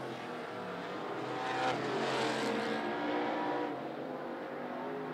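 Several dirt-track stock cars racing around the oval, their engines revving up and down through the turns. The engines are loudest about two seconds in.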